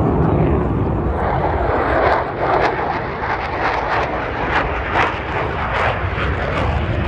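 Military jet flying low past the field: a loud, steady jet-engine rush with a fast crackle running through it.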